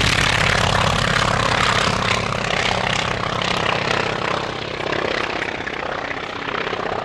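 Polikarpov I-16 fighter's radial engine and propeller running at takeoff power as the plane lifts off and climbs away, the steady engine note gradually fading.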